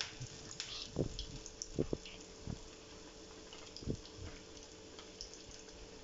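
Soft pats and plastic rustles as a ball of chana dal vada dough is pressed flat by hand on a plastic sheet held in the palm. A handful of muffled knocks fall in the first four seconds, over a steady low hiss.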